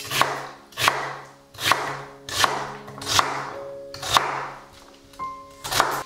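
Kitchen knife chopping through a peeled potato onto a wooden cutting board: about seven cuts, a little under a second apart, each a sharp knock on the board. Soft background music plays underneath.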